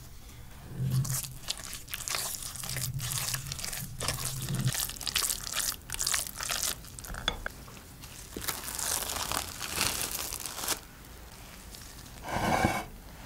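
A wooden spoon mixing raw minced beef with chopped onion and spices in a glass bowl, in irregular wet strokes that stop about eleven seconds in. Near the end comes one short, louder sound with a buzzy pitched tone.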